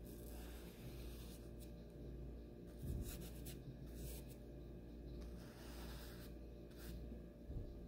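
Paintbrush bristles stroking paint across a textured canvas, a series of short, soft brushing strokes over a steady low hum. A soft low thump about three seconds in and again near the end.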